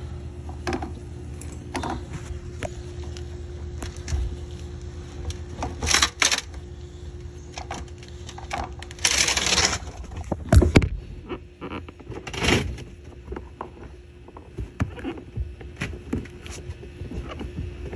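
Scattered clicks and knocks of hands and tools handling a car's fuel pump module and its plastic connectors, over a steady low hum. A short loud hiss comes about nine seconds in, followed by a couple of louder knocks.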